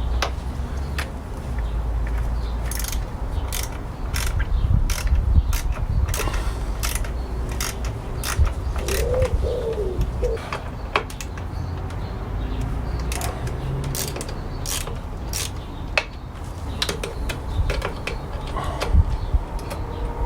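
Ratchet clicking in irregular runs as the motorcycle controller's security Torx screws are worked loose, over a low rumble. A brief bird call about nine seconds in.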